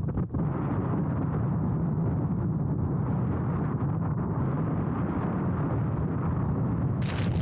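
Wind buffeting the microphone: a steady rumbling rush, heaviest in the low end. Near the end comes a short hissing burst of noise.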